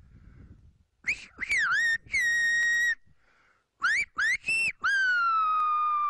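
Silbo Gomero whistled speech, made with the fingers in the mouth: a run of short gliding whistles and a held note, a quick string of rising notes, then a long note that slowly falls in pitch. The whistled message says "Go to the main square in town and ask for Francisco".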